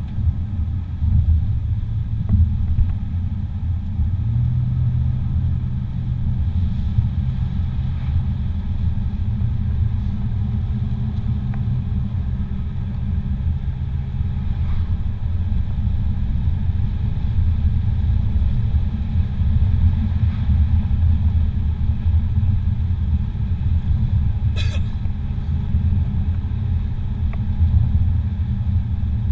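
Steady low rumble of a car's engine and tyres heard from inside the cabin while cruising along the road, with one sharp click about 25 seconds in.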